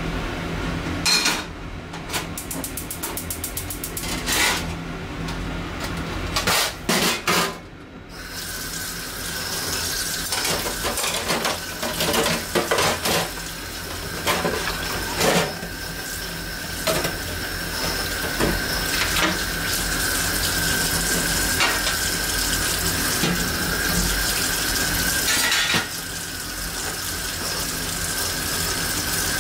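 Kitchen tap running into the sink while cooking utensils are washed by hand, with repeated clinks and knocks of metal utensils and dishes. The steady rush of the tap comes in about eight seconds in.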